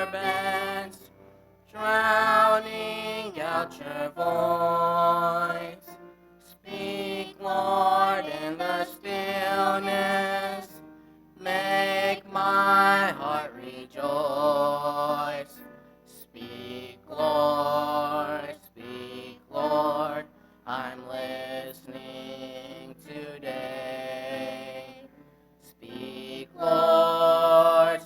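Slow church hymn sung in long held phrases, with short pauses between the lines.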